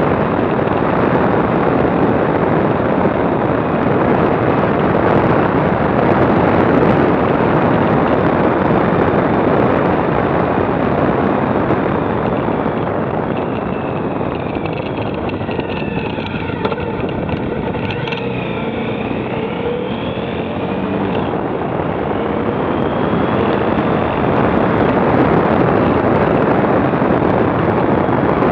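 Heavy wind buffeting on a motorcycle-mounted camera's microphone over the motorcycle's engine at road speed. For several seconds in the middle the wind eases and the engine note shows through, rising and falling in pitch.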